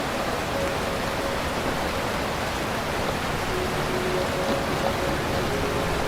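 Rain falling in a steady, even downpour, an unbroken hiss with no thunder.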